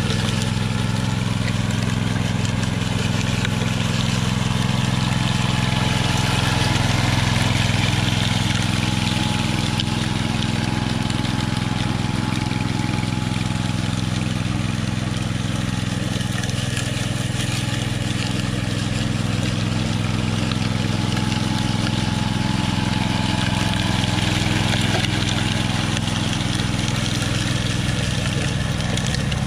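Walk-behind power trowel's small gasoline engine running steadily as its spinning blades finish the surface of setting concrete.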